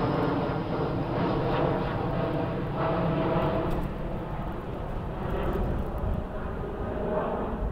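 Jet engines of a twin-engine widebody airliner climbing out overhead after takeoff: a steady rumbling roar with a faint whining tone, slowly fading as the plane draws away.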